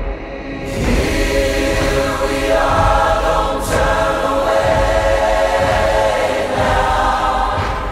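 Film soundtrack music: a choir comes in about a second in, singing sustained chords over a low rumble. A brief hiss sounds about halfway.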